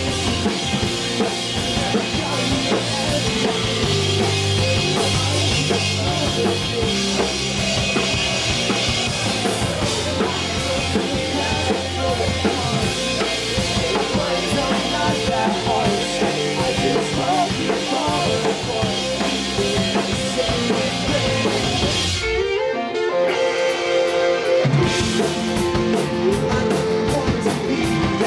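Live rock band playing: drum kit, electric guitar and bass together at full volume. About three-quarters of the way through, the drums and low end drop out for a few seconds, then the full band comes back in.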